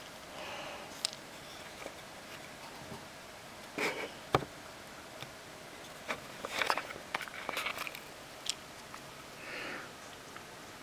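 Hands handling small objects on a desk: scattered clicks and taps, one sharp knock about four seconds in, and a cluster of clicks and short scratches a couple of seconds later. Near the end comes a brief scratchy rub as a pen tip is put to paper.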